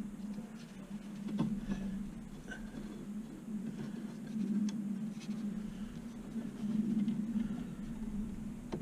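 Light scratching and a few small clicks as brake pads and small metal parts are handled, over a steady low hum.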